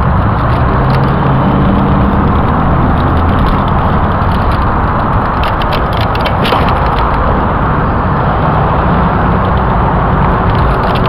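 Steady rushing noise while cycling downhill: wind on the handheld camcorder's microphone mixed with road traffic. A few brief clicks about six and a half seconds in.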